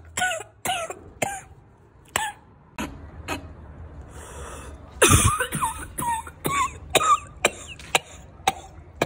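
A person coughing over and over in short, sharp coughs: a few in the first second or so, then a quicker run of them in the second half.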